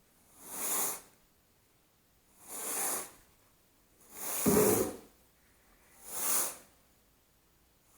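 Carpet rake strokes swishing through thick carpet pile, four strokes about two seconds apart, with a low thud on the third, as the fibres are stood up after cleaning.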